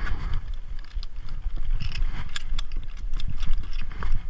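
Irregular clicks and knocks from climbing harness gear and lanyard hardware, over a constant low rumble of handling and rubbing on a body-worn action camera.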